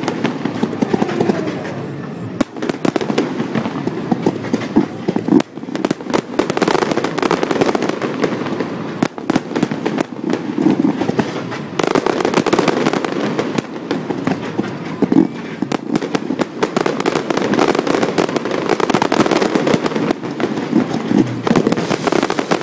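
Mid-level fireworks display firing without music: a rapid, continuous barrage of bangs and crackles from shells, comets and mines bursting, over a steady rushing noise.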